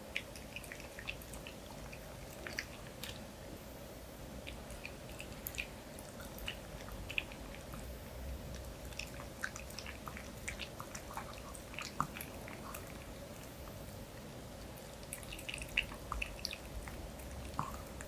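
Pomeranian licking soup broth and small bits of food off a spoon, close to the microphone: faint scattered wet licks, smacks and small chewing clicks. A faint steady hum runs underneath.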